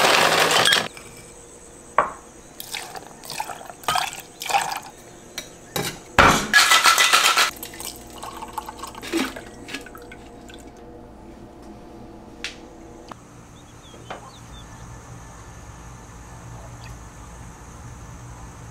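Ice cubes clattering out of a refrigerator's ice dispenser, then ice clinking against metal and glass, and a drink poured from a stainless cocktail shaker into a cut-crystal glass.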